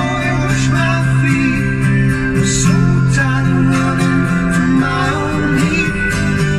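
Guitar-led music playing loudly and steadily from a BMW M6 Gran Coupe's Bang & Olufsen sound system, whose front mids and tweeters have been swapped for Focal speakers. It is heard in the car's cabin through a mobile phone's microphone.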